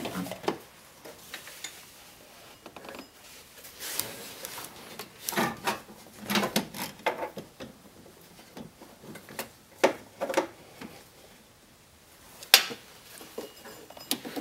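Handling noise as a rubber serpentine belt is worked by hand around engine pulleys: scattered clicks, knocks and rubbing of belt against metal and plastic, with a sharp click near the end.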